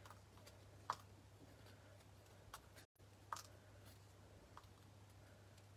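Near silence over a steady low hum, with a handful of faint ticks of cardstock as die-cut paper strips are picked out of the cut panel by hand.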